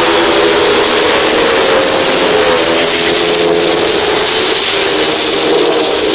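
Several speedway motorcycles, 500cc single-cylinder methanol engines, racing at high revs, with a few engine notes overlapping into one loud, continuous sound.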